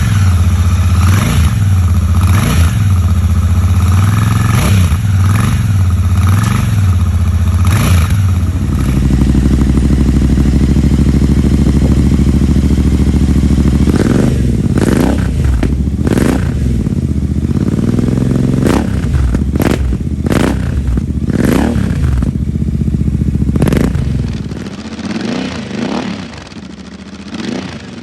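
Royal Enfield Shotgun 650's parallel-twin engine being revved through its exhaust. First comes a run of quick throttle blips about once a second, then a steady stretch, then a series of sharper revs. It settles to a quieter idle near the end.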